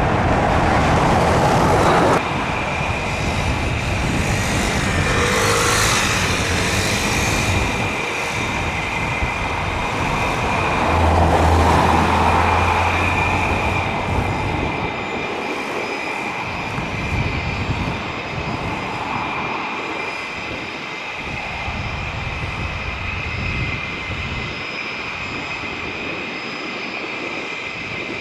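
Jet engines running with a steady high whine over a rushing roar that swells and fades a few times.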